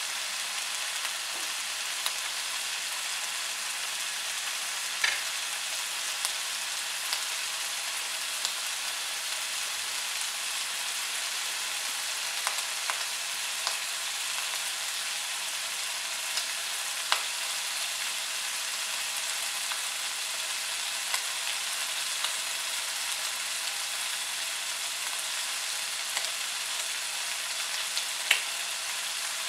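Three thin slices of bacon frying in a nonstick frying pan: a steady sizzle of hot fat with scattered sharp pops and crackles, a few louder than the rest.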